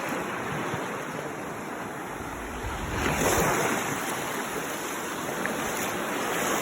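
Ocean surf washing on the shore, a steady rush that swells louder as a wave breaks about three seconds in.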